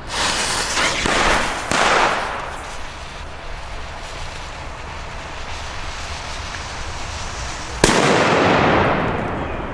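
The fuse of a Zena Bison P1 flash banger (1.5 g flash powder) is lit and hisses for several seconds. Nearly eight seconds in, the banger goes off with a single sharp, loud bang, followed by a trailing echo.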